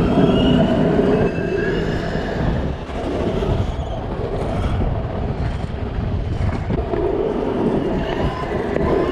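Scooter wheels rolling over city asphalt: a steady, loud rumble with a few faint high squeals, and street traffic around.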